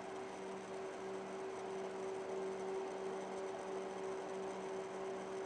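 Utility poles at the end of a street buzzing: a steady electrical hum at one constant pitch over a faint hiss.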